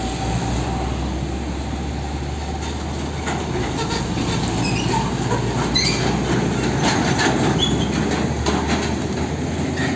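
Heavy tanker trucks driving past on a road: a steady rumble of diesel engines and tyres.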